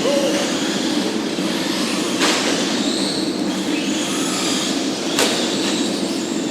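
Several Team Associated SC10 remote-control short-course trucks racing around a track: a steady drone of motors and tyres with faint whines rising and falling. Two sharp knocks come about two seconds in and again about five seconds in.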